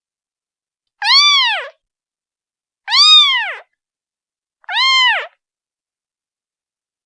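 Newborn kitten, a day old, meowing three times for its mother: high, clear calls each rising and then falling in pitch, about two seconds apart.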